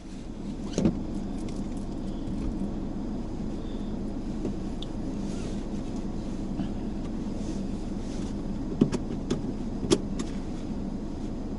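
Mazda Axela Sport driving, heard from inside the cabin: a steady engine hum and road noise. A few short sharp clicks or knocks stand out, about a second in and twice near the end.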